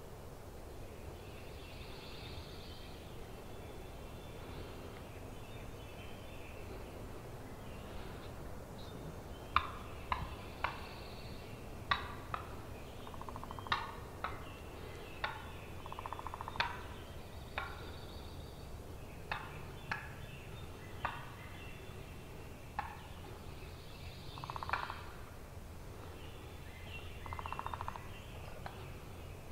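Wild turkeys calling: a run of short, sharp notes about a second apart, with a few brief rattling gobbles among them.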